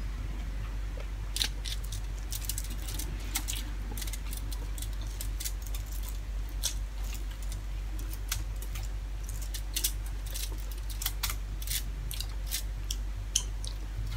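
Fingers picking and tearing at food on an aluminium-foil-covered table, making a quick string of sharp crackles and clicks, with a steady low hum underneath.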